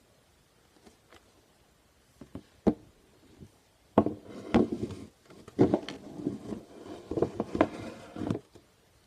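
Plastic Tupperware containers handled close to the microphone: a few light, separate taps, then from about four seconds in a dense run of clacking and knocking plastic that stops near the end.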